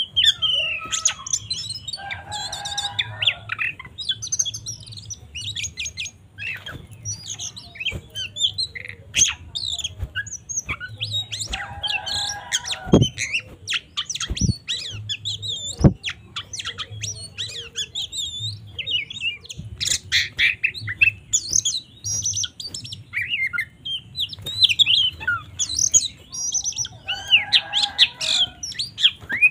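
Oriental magpie-robin singing an agitated fighting-mode song: a rapid, varied run of high chirps and whistles, broken by harsh rasping calls about every ten seconds. A few sharp knocks sound near the middle.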